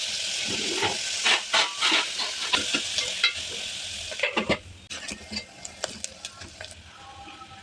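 Food sizzling in hot oil in a pan while a spoon stirs and scrapes against the pan, with many sharp clicks. The sizzle drops away a little over halfway through, leaving quieter scattered clicks of the spoon.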